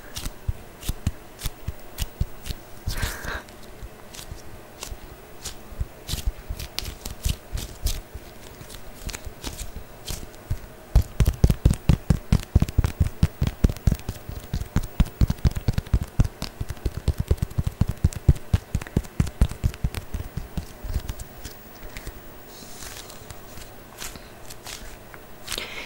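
ASMR tapping and scratching on an object close to the microphone, a dense, fast run of taps in the middle, lighter scattered taps and scrapes before and after.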